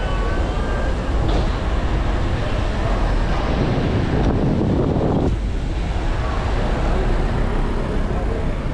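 Wind buffeting the microphone during a bicycle ride, with street traffic noise underneath. It grows louder about three and a half seconds in and drops away suddenly just after five seconds.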